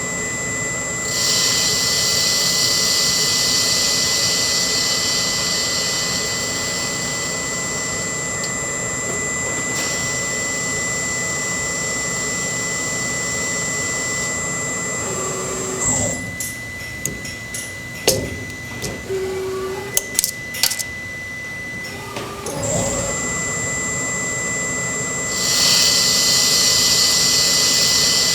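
OmniTurn CNC lathe running an automatic cycle, with a steady high spindle whine and a hiss that grows louder at times. Partway through, the whine stops for several seconds while the loader and turn-around mechanism handle the part with a series of sharp clicks and knocks. Then the whine and hiss start again.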